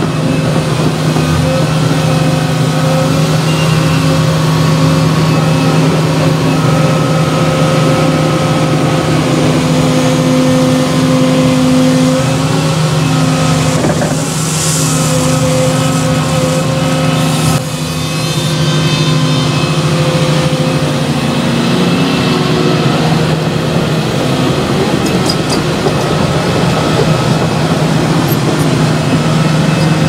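Volvo tracked excavator's diesel engine running steadily under load, its note shifting slightly as the hydraulics work the arm. A short hiss comes about halfway through.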